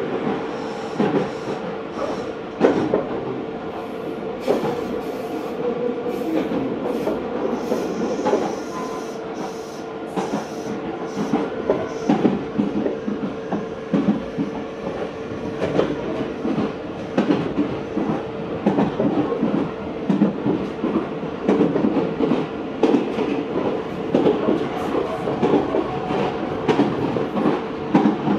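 Meitetsu 4000 series electric train running between stations, heard from inside the car: a steady rumble of wheels on rail with a steady mid-pitched hum and irregular clicks as the wheels pass over rail joints.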